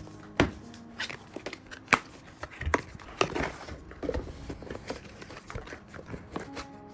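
Hands handling computer parts and plastic packaging: scattered sharp clicks and snaps, the loudest about half a second and two seconds in, between crinkling and rustling.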